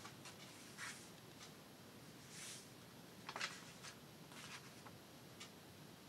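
Faint rustling and soft clicks of paper pages being handled and laid in place, a few brief sounds with the loudest about three and a half seconds in.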